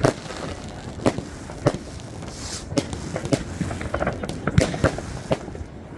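Fireworks going off in many places at once: irregular bangs and pops from rockets and firecrackers over a constant background of distant bursts, with a short hiss about two and a half seconds in.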